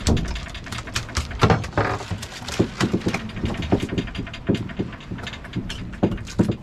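Irregular knocks and slaps on the boat's metal deck and rail as black rockfish are unhooked and flop about, over a low steady rumble of boat and sea.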